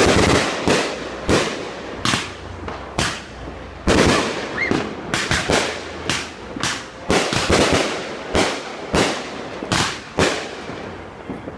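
Fireworks going off: a rapid string of sharp bangs, one to three a second with some in quick clusters, each followed by a short echoing tail.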